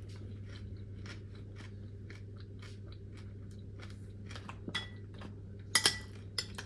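Close-miked chewing of crunchy freeze-dried fruit: a steady run of small crackles, with a few sharper, louder clicks near the end.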